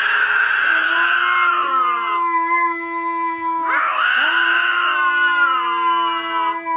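Two cats yowling at each other face to face in a standoff: a low, steady drawn-out wail with two louder, rougher yowls over it, the first at the start and the second about four seconds in.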